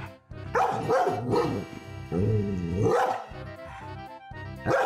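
A dog barking in several quick bouts, about half a second in, again around two seconds in and once near the end, over background music with a steady beat.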